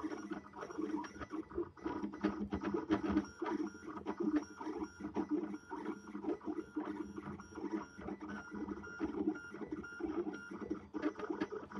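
3D printer's stepper motors driving a UV laser head in many short moves as it exposes a PCB pattern onto photoresist. The motors give short whines that jump in pitch from move to move, with frequent ticks.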